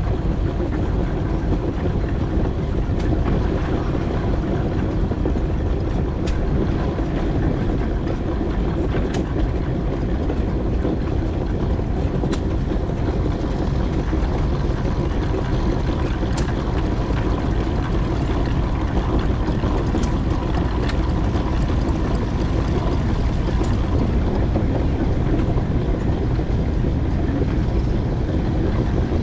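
4-inch scale McLaren steam traction engine running on the move, a steady low rumble with a faint click every few seconds.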